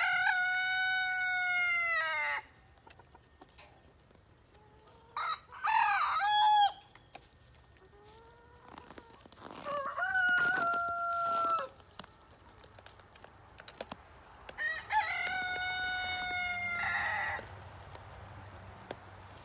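A chicken crowing four times, about five seconds apart. Each crow lasts about two seconds and ends on a long, slightly falling held note.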